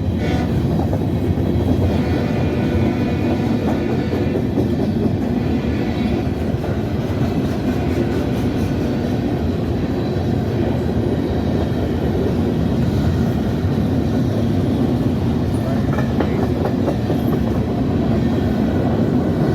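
CSX freight train rolling past close by: a steady, loud rumble of wheels on the rails.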